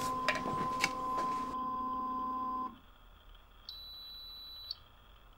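Anycubic Wash & Cure station ending its UV curing cycle as the timer runs out. Its steady running hum stops suddenly under three seconds in. About a second later the machine gives one high, steady beep lasting about a second, its cycle-complete signal.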